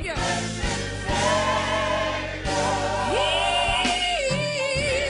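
Live Black gospel music: a woman's lead vocal with strong vibrato over backing voices and a steady low instrumental accompaniment. About three seconds in, her voice slides up into a long held note.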